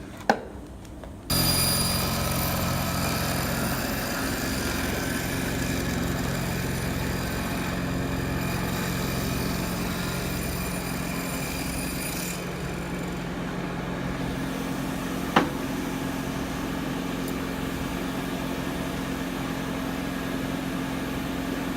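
Table saw switched on with a click, coming up to speed about a second in, then running steadily as a veneer strip for a guitar neck laminate is ripped through a grooved MDF support jig. The high end of the sound changes about two-thirds of the way through, and there is one short sharp noise near the end.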